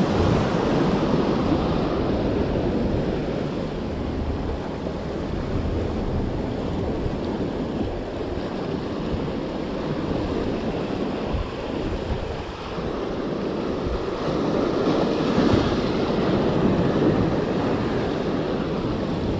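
Rough sea surf breaking and washing over the rocks of a breakwater, a steady rushing that swells louder about fifteen seconds in, with wind on the microphone.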